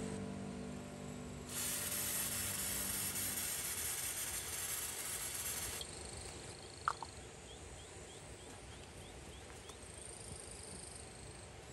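An aerosol spray can hissing in one steady blast of about four seconds, starting and stopping abruptly: insecticide sprayed onto a paper wasp nest. Background music fades out at the start, and a short high chirp comes after the spray.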